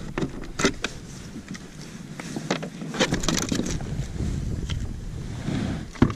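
Fish and fishing gear being handled in a plastic kayak: a run of small clicks and knocks, thickest about three seconds in, with a sharp knock, the loudest sound, near the end. Wind buffets the microphone, most strongly in the first second.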